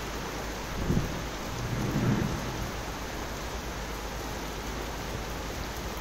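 Steady rain falling, a dense even hiss, with two brief low thumps about one and two seconds in.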